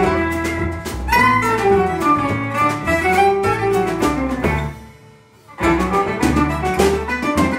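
A small acoustic band playing: violin over double bass, acoustic guitar and piano. The music breaks off briefly about five seconds in, then resumes.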